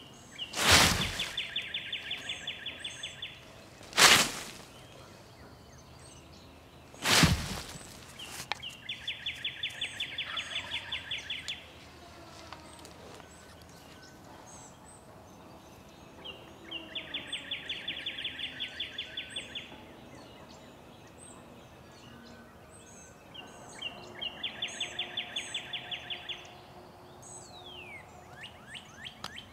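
Turkey call worked in hen yelps: four series of about a dozen evenly spaced notes, each lasting about three seconds and coming roughly every eight seconds, to draw gobblers in. Three sharp knocks sound in the first several seconds, and faint songbird chirps run underneath.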